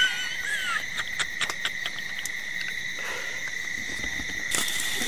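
Steady evening insect chorus of crickets, an even high trill, with scattered clicks and rustling as the camera is handled and set down.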